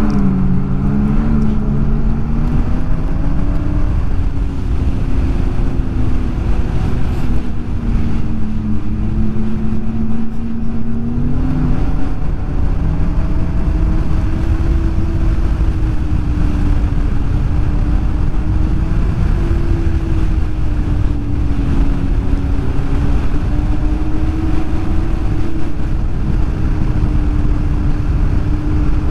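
Snowmobile engine running under way, its pitch wandering up and down with the throttle and stepping up about twelve seconds in, over a steady low rumble.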